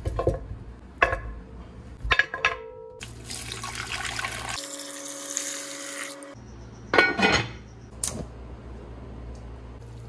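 Pieces of beef foot set down in a pot with a few knocks, then water poured in over them, a rushing splash that lasts a few seconds.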